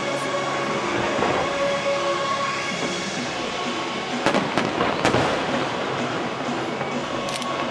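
Fireworks going off: a steady rumbling crackle, with sharp bangs about two-thirds of the way in and again near the end.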